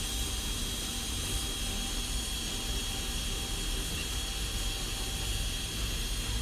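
Blowtorch flame burning steadily, a constant rushing hiss over a low rumble with a faint steady whistle, as it burns carbon deposits off a diesel heater's burner mesh.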